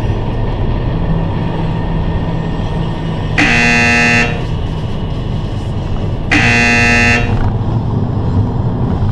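Two horn blasts, each about a second long and about three seconds apart, each starting and stopping abruptly, over steady road noise inside a moving car.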